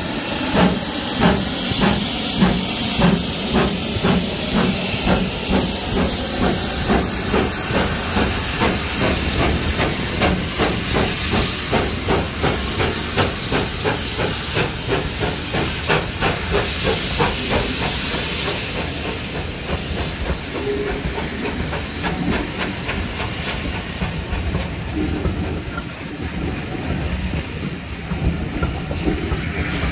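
GWR Manor class 4-6-0 steam locomotive pulling away, its exhaust beats coming faster and faster under the steady hiss of the safety valve blowing off. After about 18 s the hiss and the beats fade, and the coaches roll past in a lower rumble.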